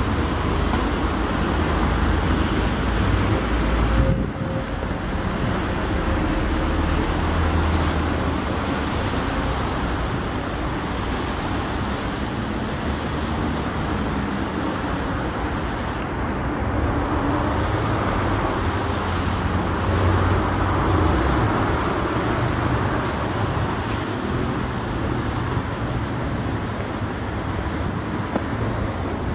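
City street traffic: cars and Tatra T3 trams running along a wet road, a steady traffic rumble with no single standout event. The sound changes abruptly about four seconds in.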